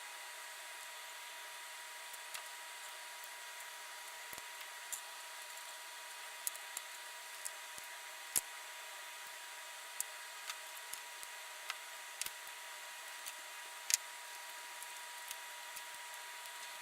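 Faint steady hiss with scattered light clicks and taps of small tools and parts being handled while wires are soldered onto a toy train track's terminals, the loudest tap about 14 seconds in.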